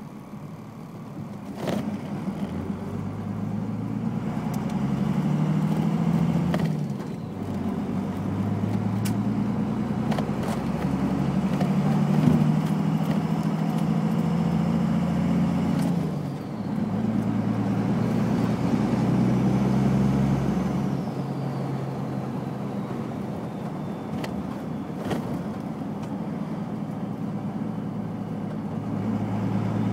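1st-gen Cummins 5.9 diesel in a manual pickup, pulling through the gears with its pitch rising and then dropping back at each of three shifts. The HX35 turbo, with no silencer ring, whistles over the engine, heard with the window down.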